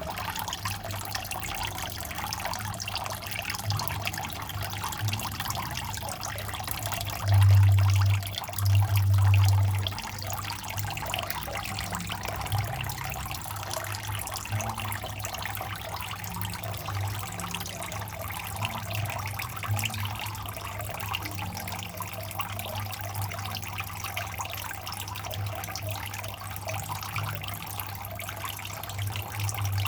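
Water trickling and splashing steadily into a small pond from the return of a running filter pump, over a continuous low pump hum. The hum swells loudly twice, briefly, about seven and nine seconds in.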